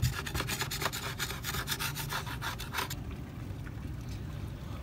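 Screwdriver tip scraping grime out of an aluminium sliding-door track in quick, rasping strokes, stopping about three seconds in.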